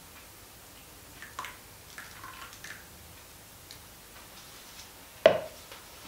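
Plastic jugs of soap batter being handled: a few light clicks and taps, then one sharp knock about five seconds in.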